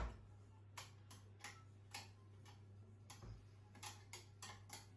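Faint, irregular clicking, roughly two clicks a second, after one sharp knock at the start, from small objects handled at a kitchen counter.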